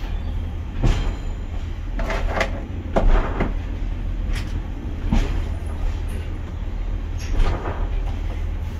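Pacer diesel railbus running with a steady low rumble, overlaid by irregular clunks and rattles every second or so.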